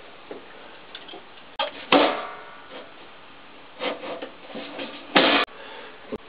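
Sheet-metal panel of a wall-mounted gas boiler being handled: scraping and clattering in a few short bursts, the loudest a brief harsh scrape about five seconds in, then a small click.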